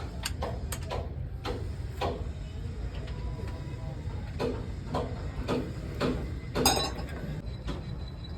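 Metal clinks and taps from hand work on a six-cylinder diesel engine during piston and ring fitting, irregular at first, then a run of taps about every half second, the loudest near the end, over a steady low hum.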